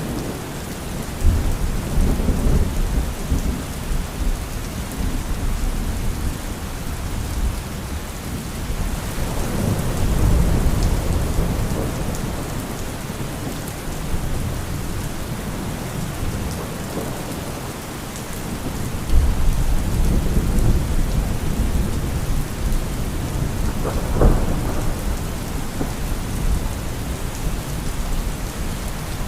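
Steady heavy rain falling, with rolls of thunder rumbling in several times and a sharper crack of thunder about three-quarters of the way through.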